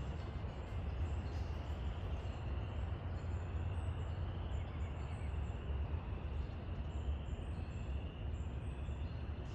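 Steady low rumbling noise, even in loudness, with faint high bird chirps repeating over it.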